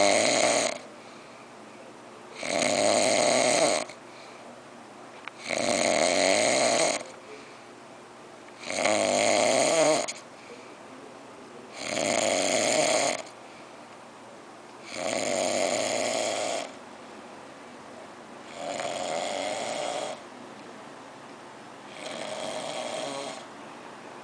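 A person snoring loudly in a steady rhythm: eight long snores about three seconds apart, each lasting over a second, the last three a little softer.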